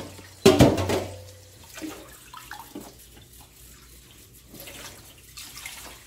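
Tap water running into a stainless steel kitchen sink while boiled greens are rinsed and cooled by hand in a bowl, with small splashes. A loud metallic clank with a short ring comes about half a second in, a metal colander knocking against the sink.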